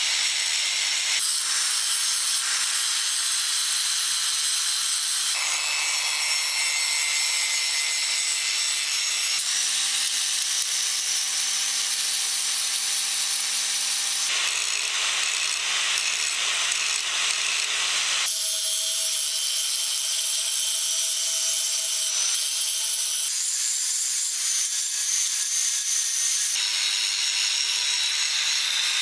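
Electric angle grinder with an abrasive disc grinding rust and steel off old rusty pincers: a steady, loud grinding noise over the motor's low hum. The sound changes abruptly every few seconds.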